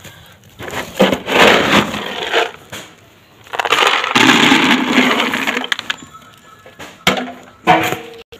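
Pelleted cattle feed scooped from a plastic sack with a plastic scoop and poured into an empty plastic bucket: a rustling rattle as the scoop digs into the pellets, then a longer, louder rattle of pellets pouring into the bucket. Two short knocks near the end.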